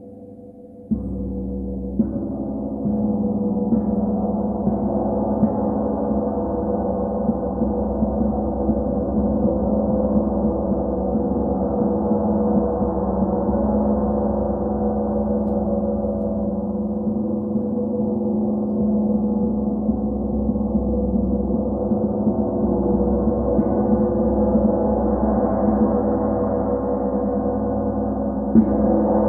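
Gong struck about a second in and again a second later, then kept sounding in one long, sustained wash of many overlapping tones. Another stroke lands just before the end.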